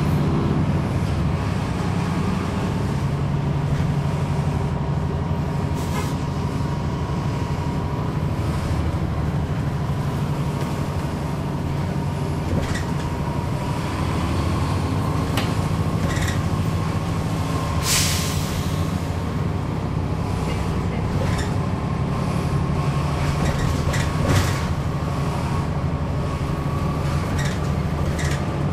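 Cabin sound of a 2011 NABI 40-SFW transit bus with a Cummins ISL9 diesel: a steady low engine drone with a faint whine slowly rising in pitch, scattered rattles and clicks, and a brief hiss of air about two-thirds of the way through.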